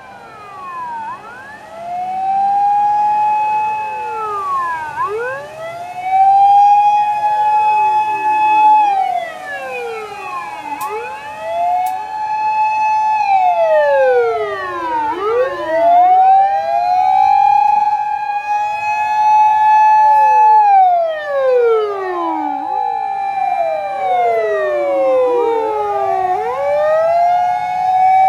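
Several emergency-vehicle sirens of a Japanese fire-service convoy wailing at once and overlapping, each rising, holding and then falling. They grow louder over the first two seconds as the vehicles approach.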